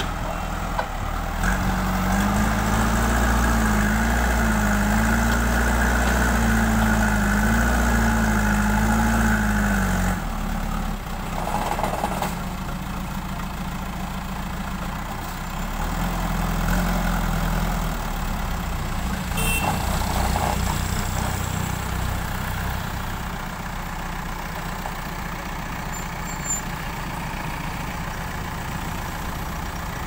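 JCB backhoe loader's diesel engine revving up and working hard for several seconds as the front loader bucket digs into and lifts a load of soil, its pitch wavering with the load. It then drops back to a lower working speed, with a second, shorter rise in revs and a few knocks later on.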